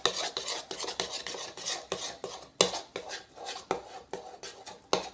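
A spoon stirring a thick mixture of glue, cornstarch, shampoo and lotion in a bowl, with irregular scraping and clinking against the bowl and a couple of sharper clinks.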